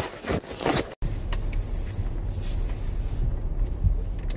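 A couple of strokes of a snow brush scraping ice-crusted snow off a car; about a second in the sound cuts off abruptly and gives way to the steady low rumble of the car running, heard from inside the cabin.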